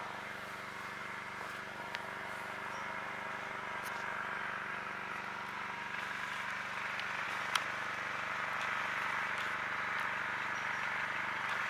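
Steady outdoor background hum and hiss, like a distant engine or machine running, with a few faint clicks.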